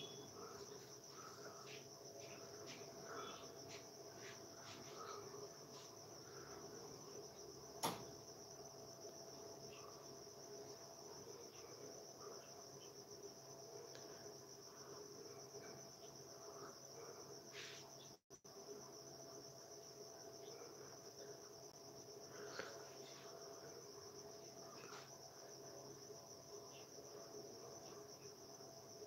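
Crickets trilling steadily over a faint steady hum, with a single sharp click about eight seconds in and a brief dropout about eighteen seconds in.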